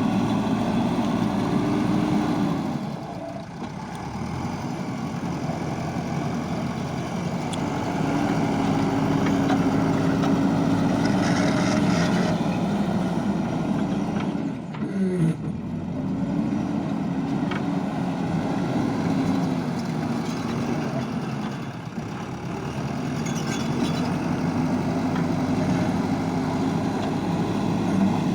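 JCB backhoe loader's diesel engine running while it works, its pitch rising and holding higher for a few seconds, then dropping back, several times over.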